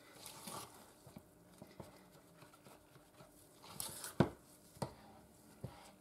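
Spatula stirring thick soap batter with ground pumice mixed in, in a plastic bucket: faint scraping and soft wet stirring, with a few sharper clicks of the spatula against the bucket in the second half.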